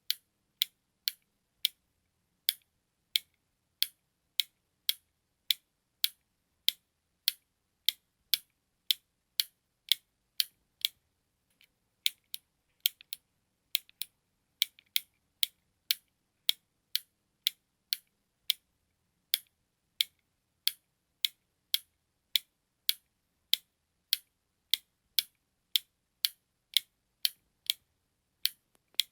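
Button click sound effect: short, sharp, high clicks repeating evenly about twice a second in a tick-tock rhythm, with a brief pause about eleven seconds in.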